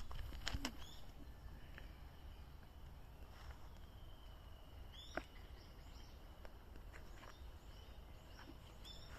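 Faint, distant song of a Japanese bush warbler: a long held whistle that ends in a quick rising flourish about five seconds in, with scattered faint chirps over quiet outdoor background. A few sharp clicks come just after the start and again about five seconds in.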